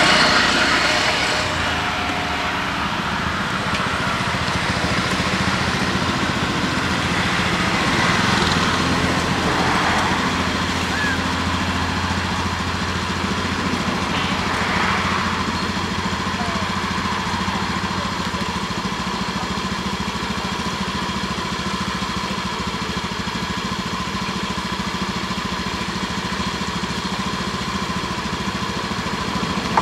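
A small engine running steadily, louder right at the start and swelling briefly again around eight and fifteen seconds in.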